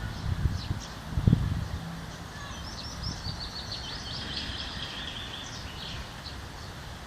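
Small songbirds chirping, with one bird singing a rapid run of repeated high notes in the middle. Low thumps near the start over a steady low background rumble.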